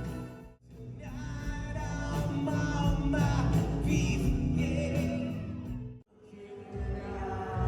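Music with singing, broken twice by brief drops to silence: about half a second in and again about six seconds in.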